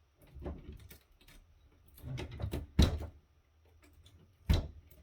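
Clicks and knocks of a partly disassembled video phone's circuit board and plastic housing being handled on a work surface: a cluster of clicks about two seconds in ending in a sharp knock, and another sharp knock near the end.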